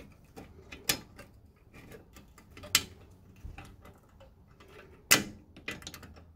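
Scattered light metallic clicks as a hand tool works a parking brake shoe's hold-down spring and cap into place on a C3 Corvette rear brake, the loudest click a little after five seconds in.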